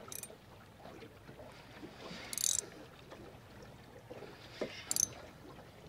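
Faint sounds of a small aluminium dinghy on the water: low water lapping, with a few short hissing sounds, the longest about two and a half seconds in.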